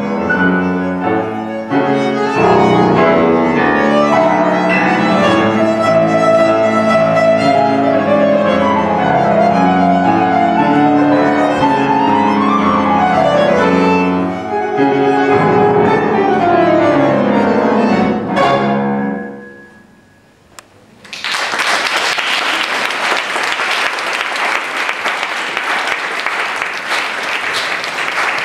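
Bandoneon and piano playing a tango, with rising and falling runs before a final note that dies away a little over halfway through. After a short pause, an audience breaks into steady applause.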